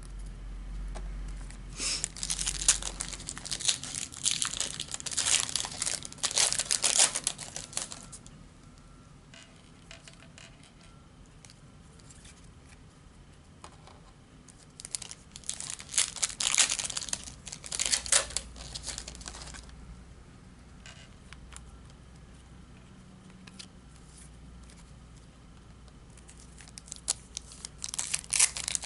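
Panini Prizm Euro 2016 foil trading-card packs crinkling and being torn open, in three bouts of crackly rustling: about two seconds in, around the middle, and again near the end.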